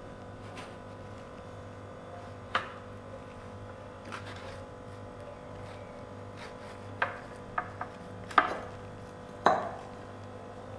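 A knife cutting through a watermelon on a serving tray: a few short sharp knocks of the blade and rind against the tray, more of them in the second half, over a steady low hum.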